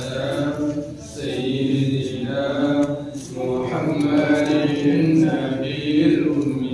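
Male voices chanting salawat, devotional blessings on the Prophet, in drawn-out melodic phrases about two seconds long with brief breaths between them.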